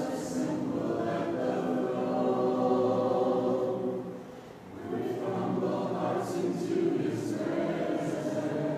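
Church congregation singing a hymn a cappella, many unaccompanied voices holding long notes. There is a short break between phrases about four and a half seconds in.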